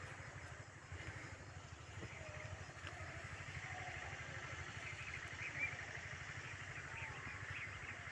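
Outdoor rural ambience: a steady low rumble with faint, scattered chirping.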